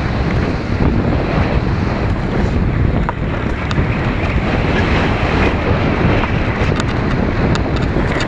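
Wind rushing over the microphone of a camera on a mountain bike speeding down a dirt trail. Under it are the rumble of tyres on dirt and gravel and scattered sharp clicks and rattles from the bike, bunched together late on.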